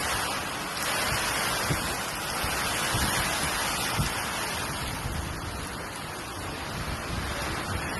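Hurricane wind and heavy rain: a steady rushing hiss, with a few brief low thumps of wind buffeting the microphone.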